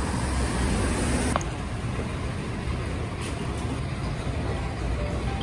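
Steady city street traffic noise: a low rumble of passing vehicles, with a brief click about a second and a half in.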